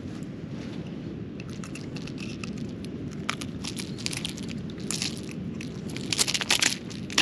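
Small clicks and crackles of pliers gripping and twisting a lure's hook out of a dusky flathead's mouth, thickening into a rapid cluster of louder clicks about five seconds in, over a steady low background noise.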